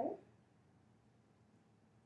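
A woman's voice ends a word at the very start, then near silence: room tone.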